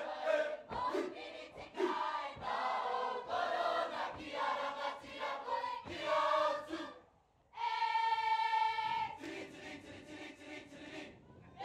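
Cook Islands choir of men and women singing an imene tuki in parts. The song breaks off briefly about seven seconds in, then one long high note is held before the voices come back in.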